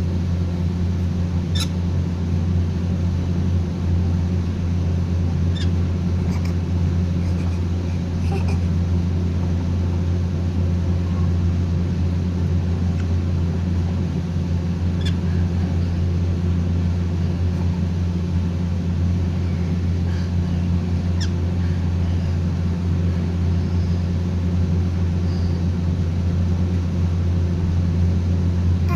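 Steady low mechanical hum, with a few faint, short parrot chirps scattered through it.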